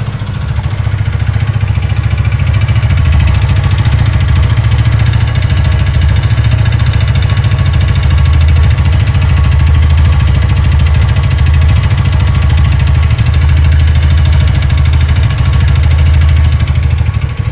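Haojue DR-160's single-cylinder engine idling steadily, heard close up from one side of the engine, carrying the small, annoying mechanical noise that the owner is trying to trace and suspects is linked to an injection fault.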